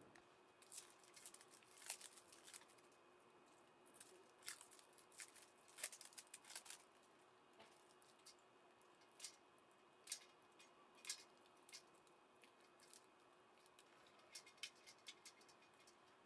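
Light clicks and rustles of a 3D printer's wiring being handled, as small plastic cable connectors are sorted and fitted to its control board. The clicks come in irregular clusters.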